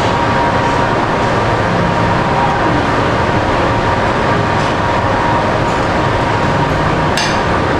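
Steady, loud rushing hum of restaurant background noise with a faint steady tone running through it. A light clink of metal chopsticks on tableware comes near the end.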